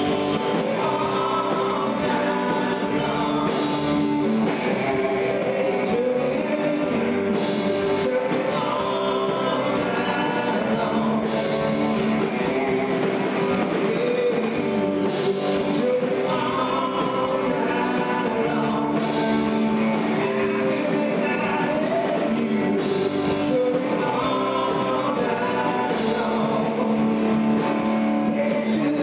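Country-rock band music with a singer and guitars, playing continuously at an even level.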